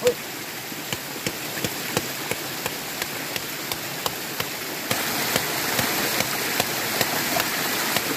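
Running stream water with a soft, regular squelch about three times a second as smashed vine bark is rubbed and wrung in the water to work up a fish-stunning foam. The water sound grows louder about five seconds in.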